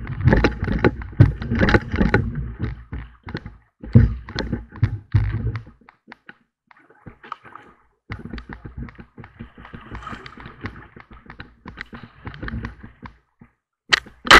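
Canoe being paddled along a fast-flowing river: water rushing and splashing against the hull, with many short knocks of paddles against the boat. It is loudest for the first six seconds or so, quieter after, with one sharp knock near the end.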